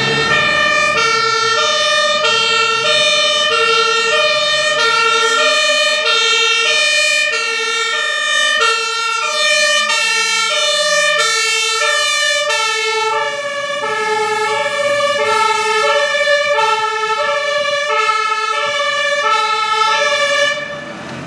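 Fire truck's compressed-air two-tone horn (German Martinshorn) sounding its alternating high-low 'tatü-tata' about every half second, loud and without a break, until it drops away near the end.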